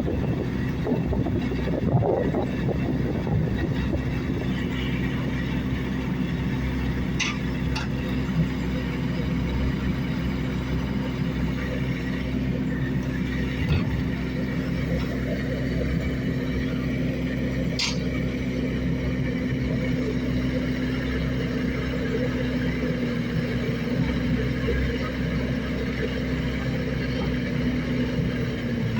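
Heavy diesel engine running at a steady speed, with a constant hum throughout. A couple of brief high-pitched sounds cut in, about a quarter of the way in and again past the middle.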